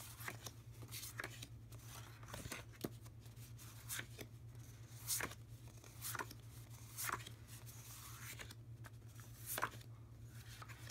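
Sheets of 6x6 patterned scrapbook paper being handled and laid one over another, a short papery swish or tap roughly once a second, with a faint steady low hum underneath.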